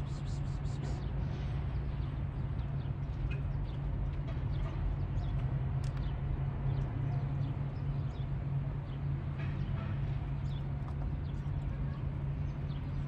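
Kittens crunching dry cat food, a run of short, scattered clicks, over a steady low hum.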